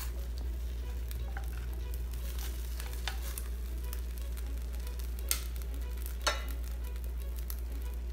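Metal tongs turning pork ribs over in a ceramic baking dish: three sharp clicks and taps of the tongs against the dish over a steady faint hiss and low hum.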